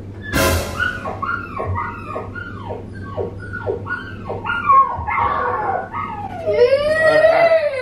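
Chihuahua whimpering and yipping in a quick series of short, falling cries, about two or three a second, after a sharp knock near the start. Near the end a child starts a longer, wavering cry.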